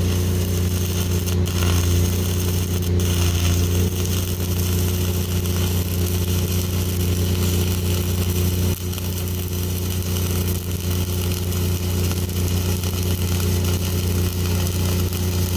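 Self-shielded flux-cored arc welding with Lincoln NR-305 5/64-inch wire: the arc crackles and hisses steadily. Under it runs the steady hum of the Lincoln 305D engine-driven welder's diesel engine, working under load.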